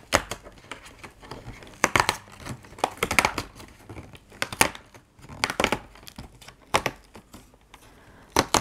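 Cardboard door of an advent calendar being pried and torn open and handled, giving irregular crinkling and tearing crackles.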